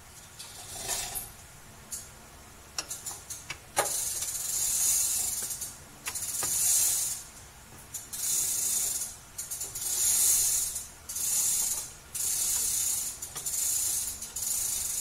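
Repeated bursts of high hissing noise, each about a second long and coming every second or two, with a few sharp metallic clicks before them.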